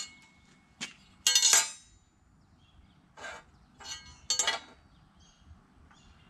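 Metal speed square being set down and shifted on a thick steel plate: several sharp clinks with a short ring, the loudest about a second and a half in.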